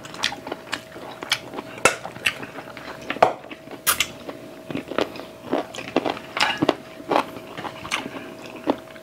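Close-miked eating sounds: chewing and wet mouth smacks, with many short clicks from lips and teeth, over a faint steady hum.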